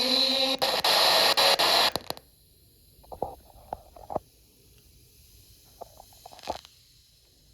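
FM radio static while tuning between stations: a loud hiss with crackles for about two seconds that cuts off suddenly to a faint high hiss, with a few brief faint blips.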